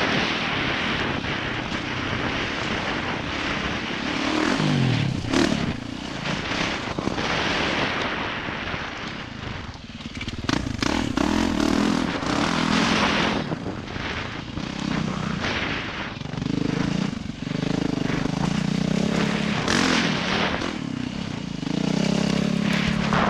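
Yamaha YZ450F single-cylinder four-stroke dirt bike engine revving up and down as the rider accelerates and shuts off through the turns. It eases off briefly about ten seconds in.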